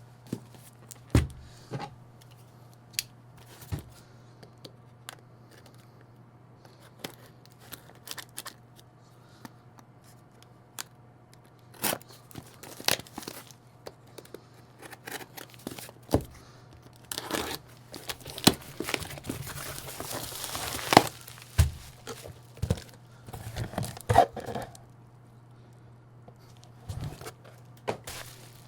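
Fragrance packaging being unboxed by hand: cardboard and plastic wrap torn and crinkled, with scattered taps and knocks, and a longer stretch of tearing and rustling about two-thirds of the way through.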